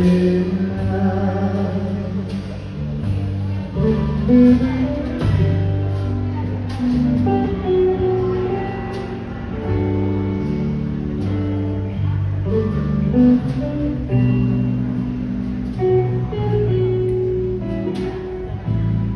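Live band playing: strummed guitar over a bass line and drums keeping a steady beat, with singing at times.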